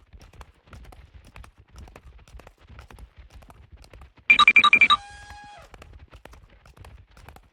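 Stampede sound effect: a steady rapid patter of heavy feet thudding, like a running herd. About four seconds in comes a loud, brief burst of quickly pulsing high ringing tones, which fade out over the next half second.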